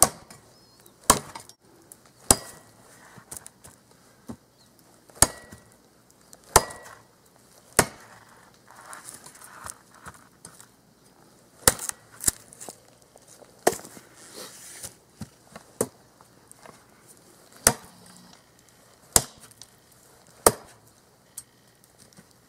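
Cold Steel Special Forces shovel's sharpened thick steel blade chopping a very dead, dry branch: about a dozen sharp chops, spaced irregularly one to four seconds apart.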